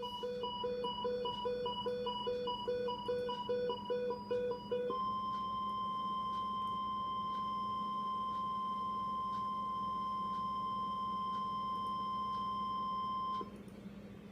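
A weather radio receiver's alarm beeping about three times a second. About five seconds in it gives way to the steady NOAA Weather Radio 1050 Hz warning alarm tone, which holds for about eight seconds and cuts off sharply near the end; the tone is the signal that a warning, here a tornado warning, is about to be read. A low steady hum runs underneath.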